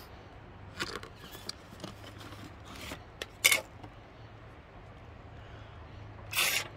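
Clear plastic blister pack of a diecast model car being opened by hand: scattered crinkles and clicks of the plastic, one sharp click about three and a half seconds in and a louder rustle near the end.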